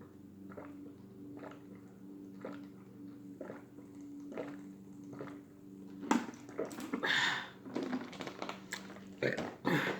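A person chewing a crunchy Cheetos-coated chicken sandwich close to the microphone, with soft chews about once a second. The sounds get louder and busier for the last few seconds.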